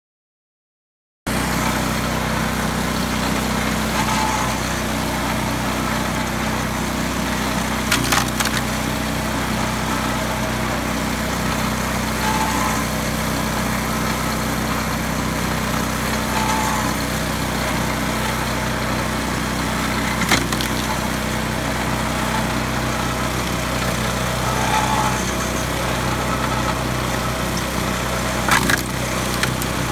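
Engine-driven pitman-arm log splitter running steadily, starting about a second in, with a few sharp cracks as logs split on it.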